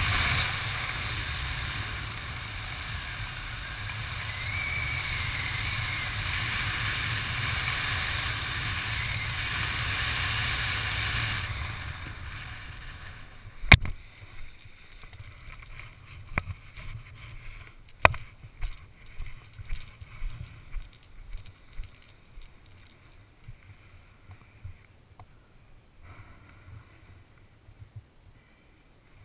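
Steady wind noise on the camera's microphone as a skydiver descends under an open parachute canopy, dropping away about halfway through as the jumper slows to land. A sharp knock marks the touchdown, followed by scattered smaller knocks and rustles of gear and canopy handling on the ground.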